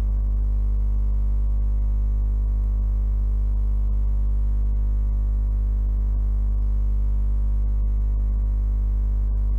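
Steady electrical mains hum at about 50 Hz with its overtones, unchanging throughout.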